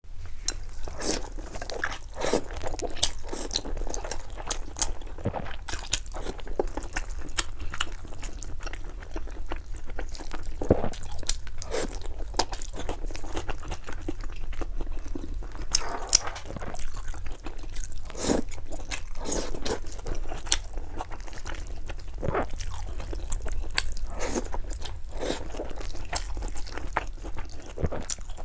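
Close-miked eating sounds of a person eating spicy noodles: continual chewing and crunching with many small, irregular mouth clicks, over a steady low hum.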